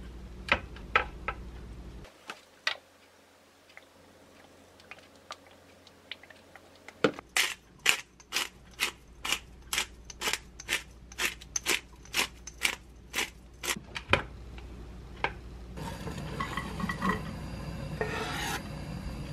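Disposable pepper grinder being twisted: an even run of sharp grinding clicks, about two or three a second, for several seconds. Before it a few scattered light clicks; near the end, chopped onion scraped off a wooden cutting board into a frying pan.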